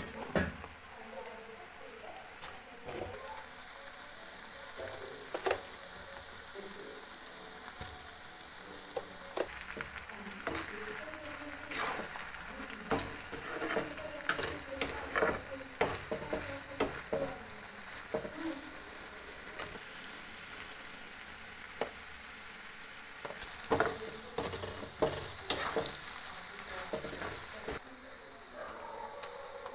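Sliced onions sizzling in hot oil in a pan, stirred with a perforated steel spatula that scrapes and clinks against the pan at irregular moments.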